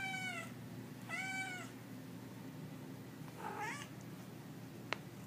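Orange-and-white tabby cat meowing three times, the third call fainter than the first two. A single sharp click near the end, over a low steady hum.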